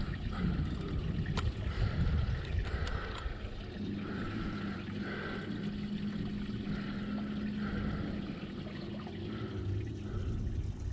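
Water trickling and lapping around a small fishing boat, with a gusty low rumble of wind on the microphone. A steady low hum comes in about four seconds in and fades out near the end.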